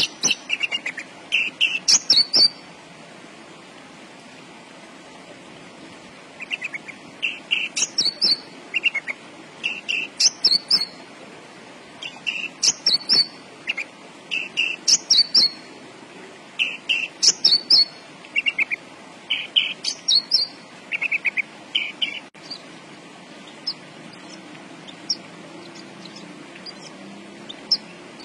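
Horsfield's bush lark (branjangan) singing: quick runs of repeated chirping notes, phrase after phrase, with a pause of a few seconds after the first phrase. Near the end the song gives way to faint, scattered short ticks.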